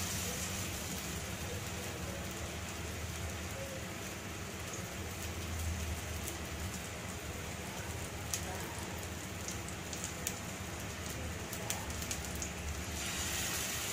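Masala-coated seer fish frying in hot oil on a flat black pan: a steady sizzle with a few sharp pops and crackles of spattering oil.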